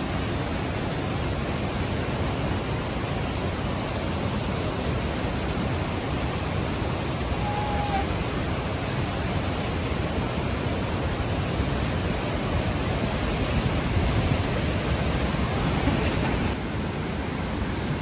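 Minoh Falls waterfall: the steady rush of falling water, a dense even noise that dips slightly near the end.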